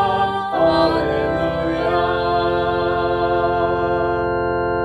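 A hymn sung with organ accompaniment. The singing and organ settle into one long held chord about two seconds in.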